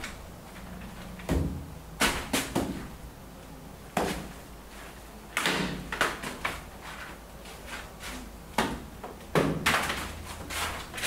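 A long-handled paintbrush slapping and dragging against a painted wall: irregular sharp knocks, some with a short scraping tail, about ten in all.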